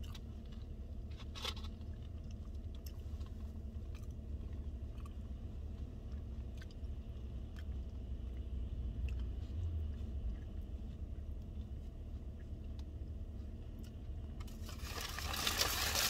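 Chewing and biting of someone eating a wrap, with small scattered mouth clicks over a steady low hum inside the car. About a second and a half before the end, loud rustling of food packaging starts.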